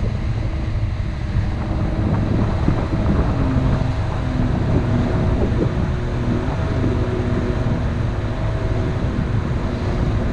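Motor cruiser under way, its Mercruiser stern-drive engine running steadily, with wind buffeting the microphone.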